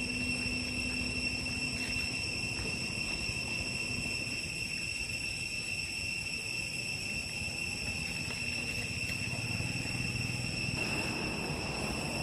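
Forest insects droning steadily at one high pitch, unbroken throughout, over a low background rumble.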